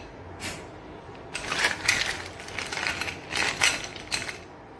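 Ice cubes clinking and clattering against a glass bowl and a metal spoon as they are scooped out to add to glasses of sharbat, in several bunches of sharp clinks.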